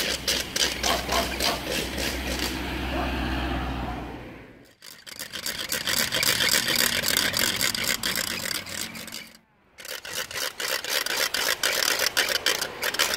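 Hand-spun wooden ratchet rattle (škrbetalica) clattering in a fast, dense run of clicks, broken twice by short pauses. A low rumble sits under the first few seconds.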